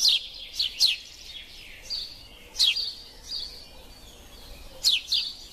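Small birds chirping: short, high calls that sweep quickly down in pitch, several in a row near the start, a few in the middle and another cluster near the end.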